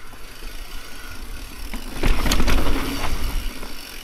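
Mountain bike riding down over large rocks: tyres and frame rattle and clatter over a low rumble, loudest and roughest for about a second and a half past the middle.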